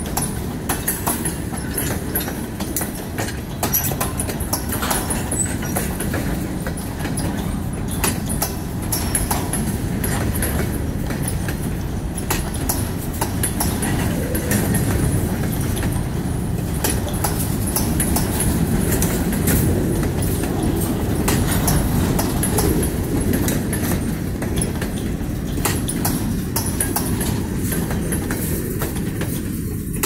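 Freight train of covered hopper cars rolling past at close range: a steady rumble of steel wheels on the rails with many sharp clicks and clacks as the wheels cross rail joints. The sound thins out at the very end as the last car goes by.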